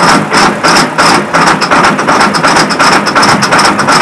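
John Deere tractor's diesel engine running just after a cold start, with a regular pulsing beat of about three pulses a second.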